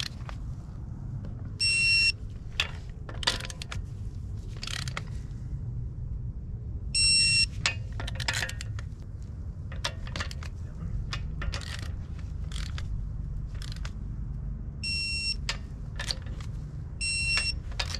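Digital torque wrench beeping four times, each a short high beep as a wheel bolt reaches the set 140 newton meters. Sharp metallic clicks of the wrench and socket on the bolts come between the beeps.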